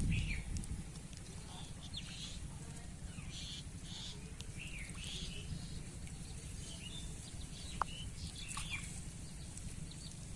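Birds chirping in short, scattered calls over a steady low rumble, with a single sharp click about three-quarters of the way through.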